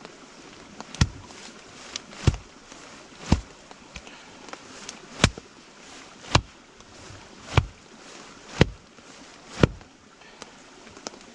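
Firewood being chopped with a hatchet: about nine sharp blows, roughly one a second, some ending in a duller thud.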